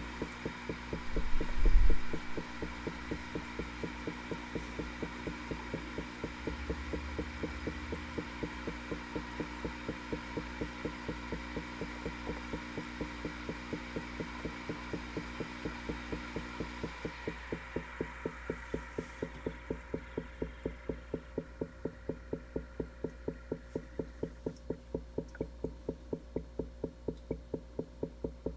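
Air bubbling through the water of a lit bubble feature in a brass porthole fitting, a soft pulsing several times a second, with a louder gurgle nearly two seconds in. A steady low hum under it stops about halfway through.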